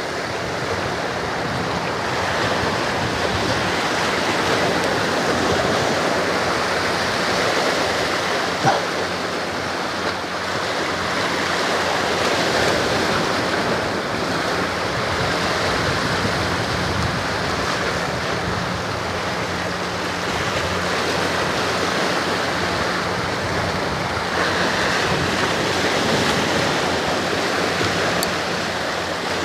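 Sea water washing against shore rocks, a steady rush of surf, with one brief knock about nine seconds in.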